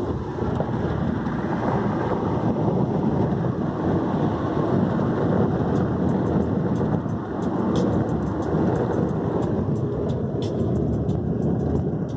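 Steady rumble of road and engine noise inside a car's cabin while driving, with a few faint ticks now and then in the second half.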